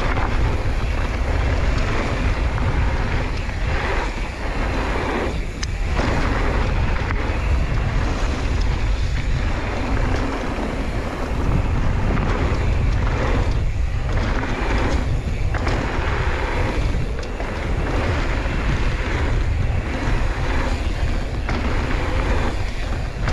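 Wind buffeting the microphone during a mountain-bike descent of a flow trail, with a constant low rumble from the ride that eases for brief moments every few seconds.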